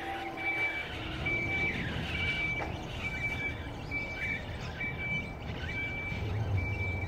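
Battery-electric rail car mover's motion warning beeper giving a steady high beep about once a second as it moves a passenger train. A low rumble of the rolling train builds near the end.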